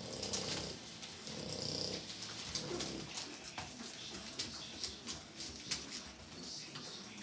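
Puppies suckling from their mother: a steady run of wet smacking clicks, with a few low grunts in the first couple of seconds.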